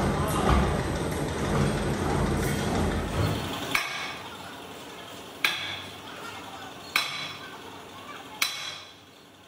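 A low mechanical rumble that stops abruptly about four seconds in. It is followed by four sharp metallic strikes about a second and a half apart, each ringing briefly, like hammer blows on steel.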